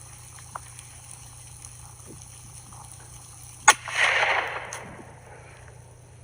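A single gunshot about two-thirds of the way in, followed by a rushing noise lasting about a second, fired to scare off an animal.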